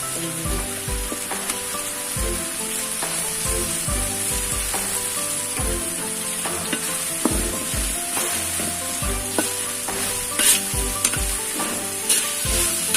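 Ground spice paste sizzling in hot oil in a pan while being stirred with a spatula, being sautéed until it wilts. There are a few sharper scrapes of the spatula on the pan near the end.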